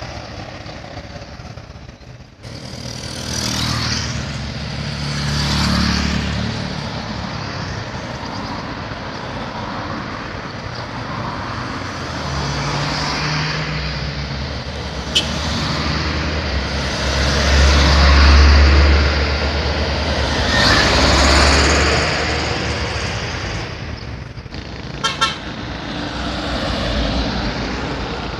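Road traffic passing close by: trucks, pickups, cars and motorcycles going past one after another, engine and tyre noise swelling and fading with each pass-by. A few short horn toots sound near the end.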